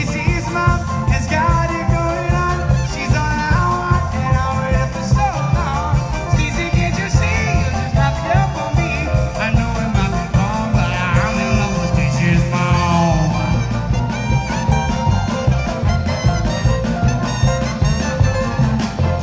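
Live band music in a vintage swing style, recorded from the audience: an upright bass plays low notes on a steady beat under the band, with pitched melody lines over it.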